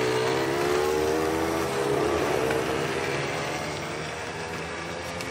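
A motor vehicle's engine running with a steady hum, strongest about two seconds in and then slowly fading.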